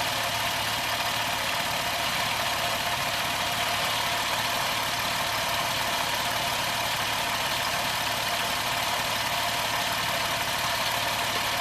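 2007 Jeep Wrangler's 3.8-litre V6 idling steadily, heard close up in the engine bay.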